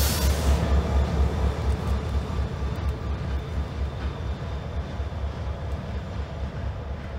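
Diesel-electric freight locomotives running as they pull away, a low, steady engine sound that slowly fades. A brief thump comes right at the start.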